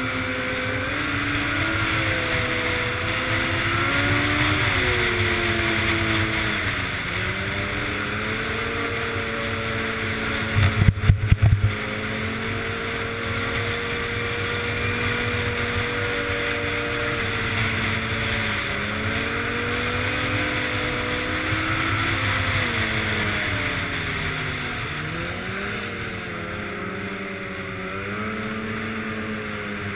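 Yamaha snowmobile engine running hard, heard from the rider's helmet, its pitch sinking and climbing again several times as the throttle is eased off and reopened. A quick run of loud thumps comes about eleven seconds in.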